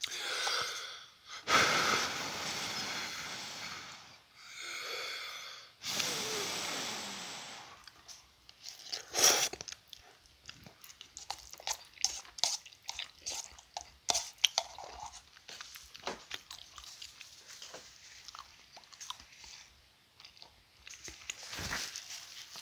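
A person slurping instant cup noodles in several long, noisy pulls over the first eight seconds or so, then chewing with many small clicks. Near the end comes a short nose blow into a tissue.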